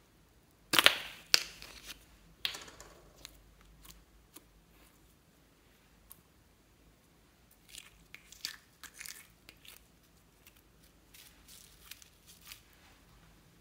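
Plastic macaron-shaped slime case being handled and opened, with two sharp crackling snaps about a second in. Softer crackles and clicks follow in scattered clusters as green slime is scraped out of the case and pressed into a bowl of foam beads.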